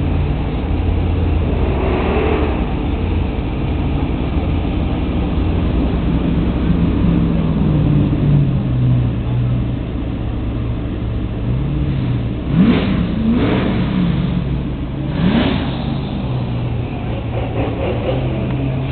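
Car engines in slow, crawling cruise traffic: a steady low engine note that shifts in pitch. In the second half come a few short engine revs, each rising and then falling away.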